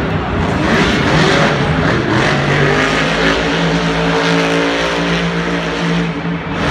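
Monster truck's supercharged V8 engine running loud and rough, settling into a steady held pitch after about two seconds.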